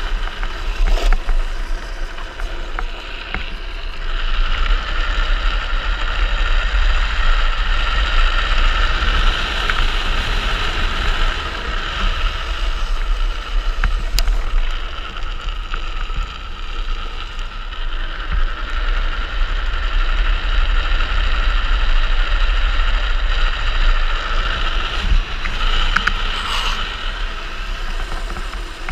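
Wind buffeting the microphone of a helmet-mounted camera and the steady rush of a speed trike's wheels rolling fast on asphalt on a downhill run: a deep rumble under a continuous hiss, with a few faint clicks.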